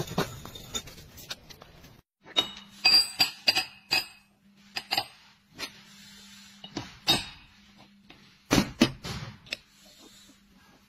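A few knocks as a tool taps a sand-cast metal piece, then, after a short break, a run of sharp metallic clinks and knocks, some ringing briefly, as steel self-aligning ball bearings and their rings are handled and set down on a steel table. A steady low hum runs under the clinks.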